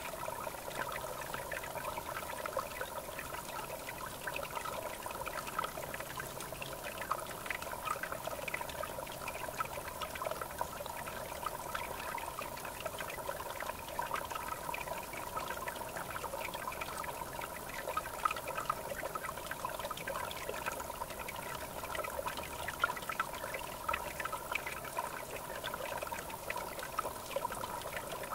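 River water flowing with a steady trickling, babbling sound.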